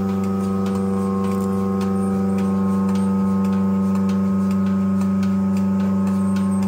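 Portable milking machine running: a steady, unchanging hum from its vacuum pump, with the light ticking of the pulsator over it.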